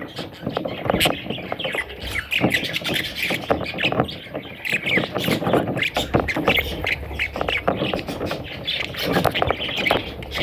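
Budgerigar chicks squawking and chirping, many short raspy calls in quick succession.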